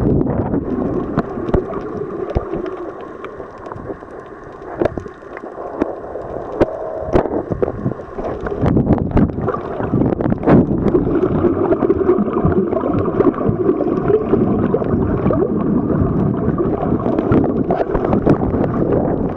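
Muffled underwater water noise picked up by a camera held below the surface: a steady gurgling rush with many scattered clicks and knocks. It dips for a few seconds near the start and grows louder from about eight seconds in.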